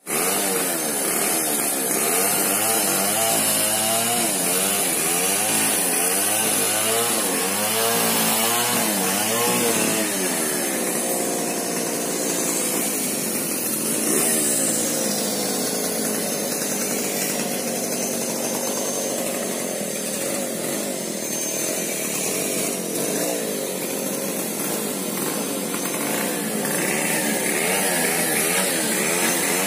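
A chainsaw engine running steadily, its pitch wavering up and down over and over as the revs rise and fall, most markedly in the first ten seconds.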